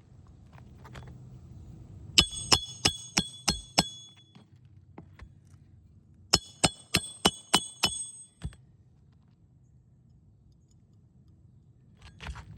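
Nails being hammered through a composition roof shingle with a roofing hatchet: two runs of about six quick, ringing metal blows each, roughly three a second, with a softer knock near the end.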